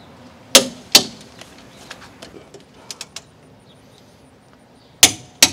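Click-type torque wrench on the rear strut-to-knuckle nuts, giving two pairs of sharp metallic clicks, one pair about half a second in and one near the end, with faint ticks between. The clicks signal that each nut has reached its set torque.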